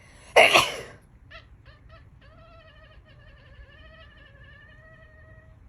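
A loud sneeze, followed by a domestic cat's three brief calls and then one long, slightly wavering meow.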